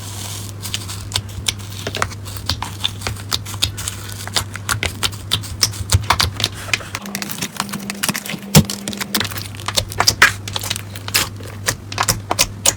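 Slime being squeezed and poked by hand, giving dense, irregular sticky clicks and crackles over a steady low hum.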